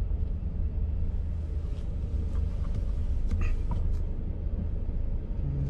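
Hyundai Starex camper van driving slowly, heard from inside the cabin: a steady low engine and road rumble, with a few faint ticks and knocks from the cabin.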